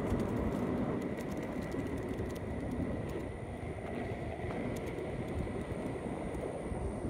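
Skateboard wheels rolling steadily over rough asphalt, a continuous rolling noise.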